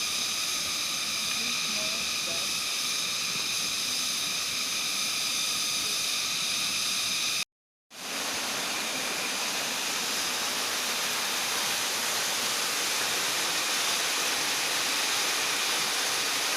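Steady rushing of a waterfall, cut by a brief gap of silence about seven and a half seconds in.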